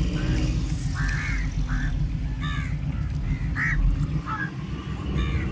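A steady low engine rumble, with about six short honking, quack-like calls over it, roughly one a second.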